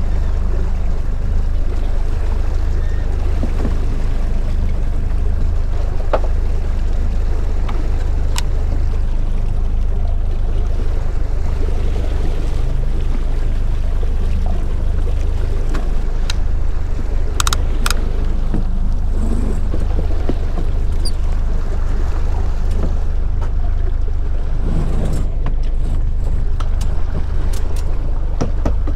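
Outboard motor running steadily at trolling speed, a low drone, with water rushing past the hull and wind on the microphone. A few brief sharp clicks stand out, around eight seconds in and twice close together past the middle.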